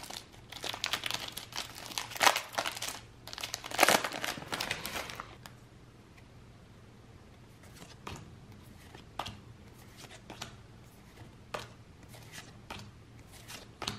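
Foil booster-pack wrapper crinkling and tearing for about the first five seconds, then sparse soft clicks of trading cards being handled.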